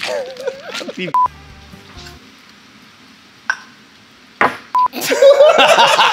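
Two short steady censor bleeps, about a second in and again near five seconds, cutting into bursts of voices. Loud overlapping voices fill the last second and a half.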